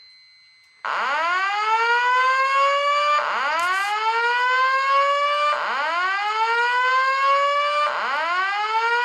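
Fire alarm voice evacuation speakers sounding a whoop alert tone: a loud rising sweep, repeated about every two and a half seconds. It starts about a second in, after a faint steady beep tone. The whoop is the alarm signal set off by a smoke detector activated with smoke tester, and it precedes the spoken evacuation message.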